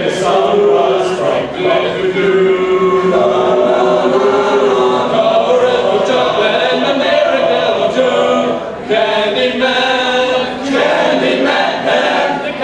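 A group of voices singing together in chorus, with a long held note from about two seconds in and a short break in the singing near the end.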